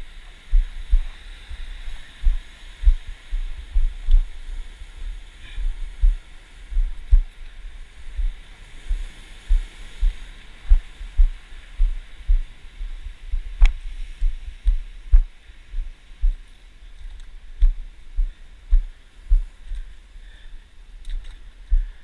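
Dull low thumps, irregular at about one to two a second, from a body-mounted camera being jolted by the wearer's footsteps over lava rock. A steady hiss sits under them, with one sharper click about two-thirds of the way through.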